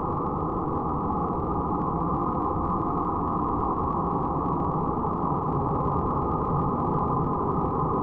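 Dark ambient noise drone: a dense, steady, muffled wall of low rumbling noise with nothing bright above it, holding unchanged throughout.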